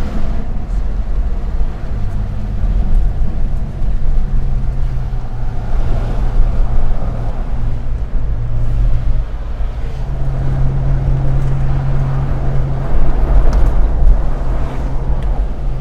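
A car's V6 engine heard from inside the cabin while driving, over a steady low road rumble. The engine note changes pitch a few times: about two seconds in, near the middle, and again about ten seconds in.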